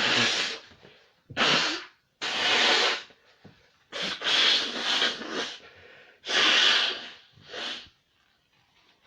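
A person sneezing loudly again and again, about six sneezes in quick succession, then stopping: an allergy sneezing fit.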